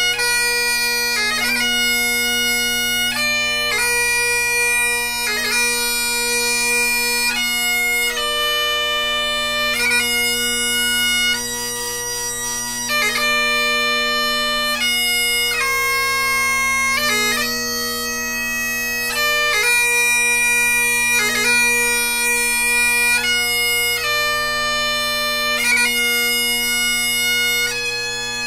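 Great Highland bagpipe playing a slow piobaireachd: the chanter moves through long held melody notes, with quick grace-note flicks between them, over the steady hum of the drones.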